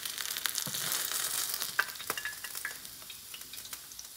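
Hot oil sizzling and crackling on a freshly pan-fried rice ball, fading over the last second or so, with a few light clicks.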